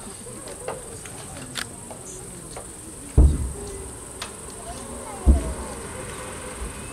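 Two deep booms from distant firework shells bursting, about two seconds apart, each trailing off in a rumble, over a steady chorus of crickets.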